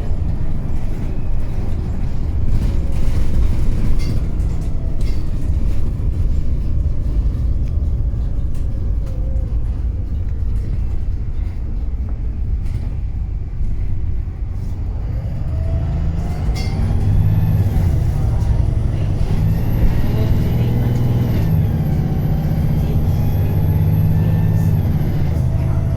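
Wright Pulsar 2 bus with a Cummins ISB diesel and Voith D864.5 automatic gearbox, running with a steady low rumble. Just past halfway, the engine note rises and grows louder as the bus pulls away, and a high whine climbs in alongside it.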